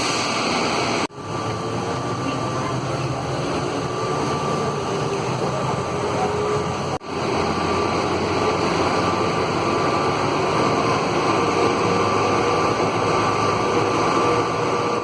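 Automated airport people-mover train running, a steady rumble and rush with a faint whine that rises slowly as it picks up speed. The sound cuts out briefly twice, about a second in and about seven seconds in.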